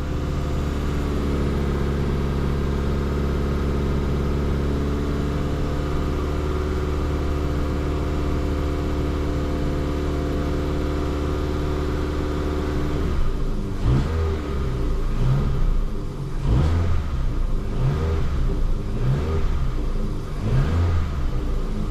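Ford Fiesta 1.25 Zetec four-cylinder petrol engine running while warming up, holding a steady speed for about thirteen seconds, then turning uneven with repeated short swells. It is running smoothly, without the reported misfire.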